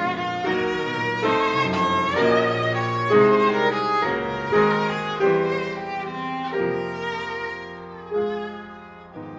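Viola playing a classical melody with grand piano accompaniment, the notes changing every half second or so. The music grows softer over the last few seconds.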